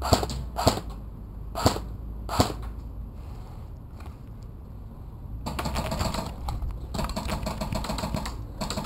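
Airsoft guns firing: four single sharp pops in the first two and a half seconds, then about three seconds of rapid, evenly spaced full-auto rattle starting about five and a half seconds in.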